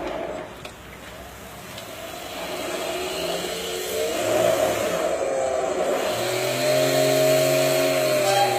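CNC marble-working machine running up: its motor sound grows steadily louder, glides in pitch, then settles into a steady hum about six seconds in.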